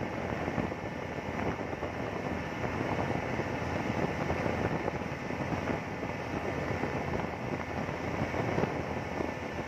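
Small motorboat under way at speed: a steady, even rush of engine noise and water against the hull, with wind on the microphone.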